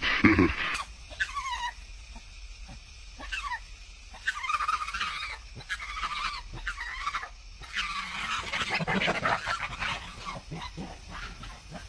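Macaques giving harsh, squealing calls in short irregular bursts while two of them fight, the calls heaviest in the second half. There is a louder burst right at the start.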